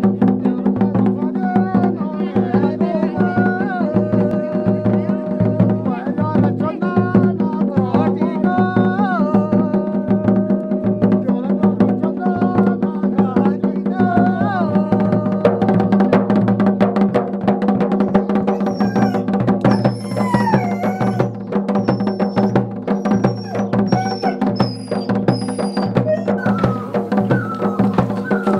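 Instrumental background music: a sustained drone under a steady drum beat, with a winding melody. High notes join in about two-thirds of the way through.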